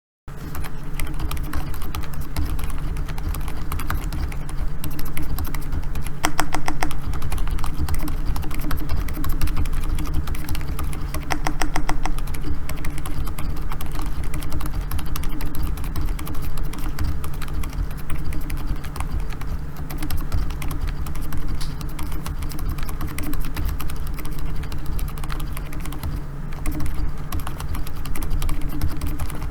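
Fast, continuous typing on a Keychron K4 keyboard with hand-lubed Gazzew Bobagum silent linear switches, a steel plate and PBT cherry-profile keycaps: a dense patter of muted keystrokes over a steady low hum. It starts abruptly a moment in.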